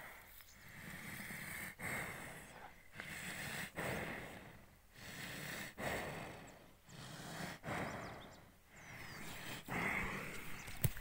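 Water buffalo breathing and snorting close to the microphone: a series of noisy breaths swelling and fading about once a second.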